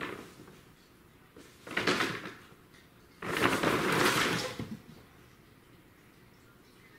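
Brown paper cat tunnel rustling and crinkling as a cat scrambles through it and out of the end, knocking it askew. There is a short burst about two seconds in, then a longer, louder one about a second later.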